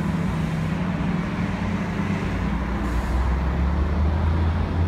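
Steady road-traffic noise with a low engine hum running under it.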